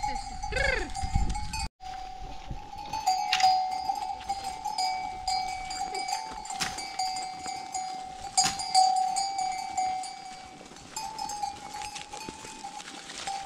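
A livestock bell in a grazing flock of sheep clanking and ringing on, with sharper strikes every couple of seconds as the animals move their heads. A short call is heard in the first second or so.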